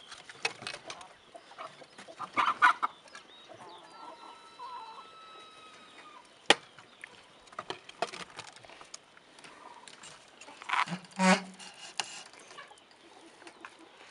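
Bursts of animal calls in the background, loudest about two and a half and eleven seconds in, with a single sharp knock about six and a half seconds in.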